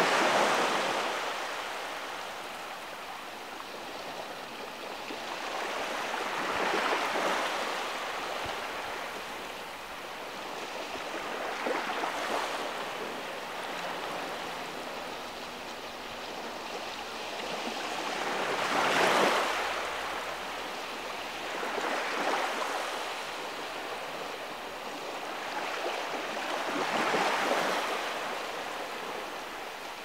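Small waves washing in over the sand at the tide line, a hiss of shallow moving water that swells and fades about six times, one surge every five to seven seconds, as the tide comes in.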